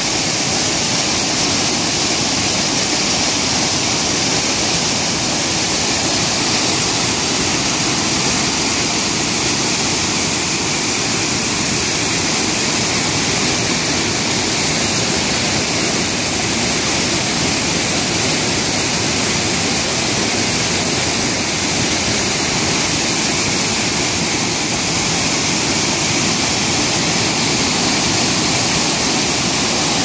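Waterfall cascading down steps of rock: a loud, steady rush of white water that stays even throughout.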